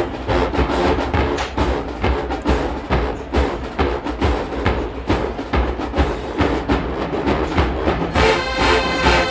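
HBCU marching band playing: a driving drumline beat with brass, the full horn section coming in loud about eight seconds in.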